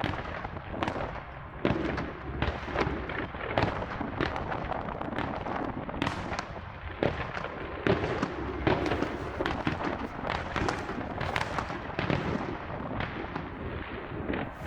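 Aerial fireworks display: an irregular, rapid string of shell bursts and crackling reports, several a second, with a few louder bangs standing out.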